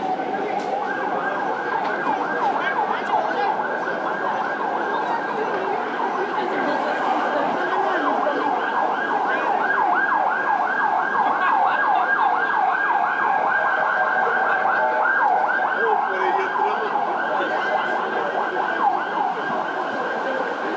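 An emergency vehicle's siren in a fast yelp, its pitch sweeping up and down rapidly between a low and a high note, over and over.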